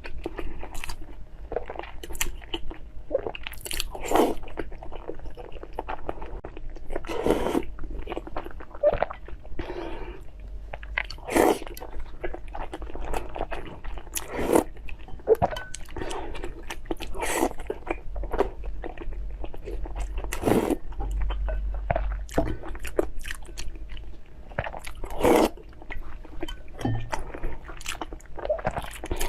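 A person biting and chewing crunchy food close to the microphone, with irregular sharp crunches between softer chewing.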